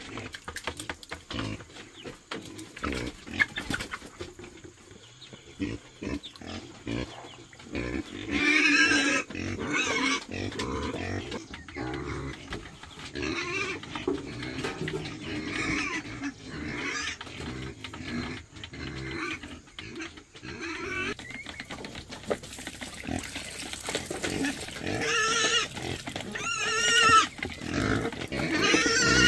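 Domestic pigs grunting and squealing, with sharp clicks and knocks in the first few seconds; the loudest, high squeals come about nine seconds in and again near the end.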